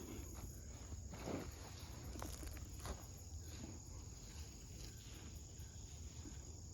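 Insects droning with a steady high tone, with a few short scrapes and rustles of hands digging through the soil of a sweet potato container.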